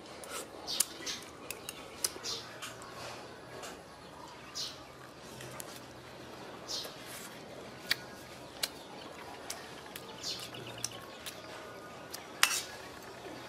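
Small birds chirping in short scattered calls, with a few sharp clicks among them, the loudest near the end.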